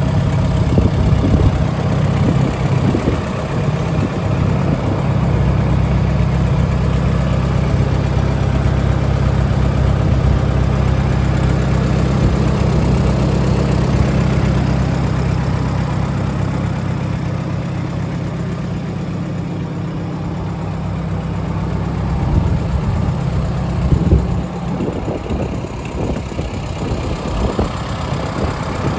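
McCormick Farmall H tractor's four-cylinder gasoline engine idling steadily. A few uneven thumps come in over the last few seconds.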